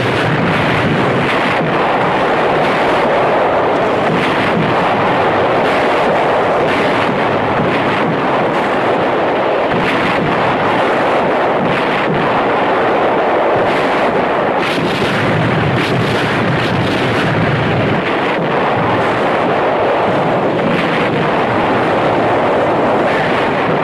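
Artillery barrage: shells bursting one after another over a dense, continuous din, loud throughout with no let-up.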